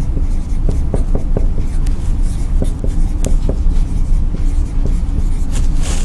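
Marker writing on a whiteboard: a string of short squeaky strokes and taps, over a steady low hum.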